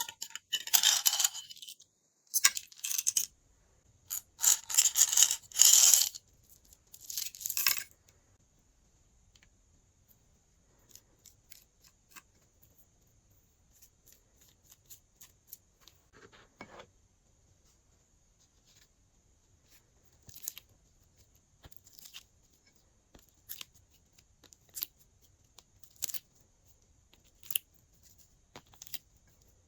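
Tearing and crinkling in five loud bursts over the first eight seconds, like packaging being ripped open. After that come only sparse, soft clicks and pops, typical of glossy slime being handled.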